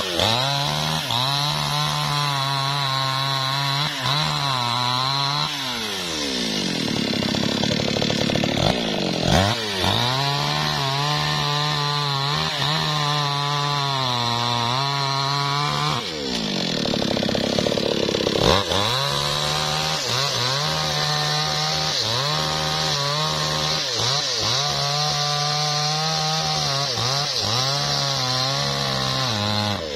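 New West 628 two-stroke chainsaw cutting through a felled log at full throttle, its engine pitch steady under load. It eases off twice, around six and sixteen seconds in, and revs back up into the cut.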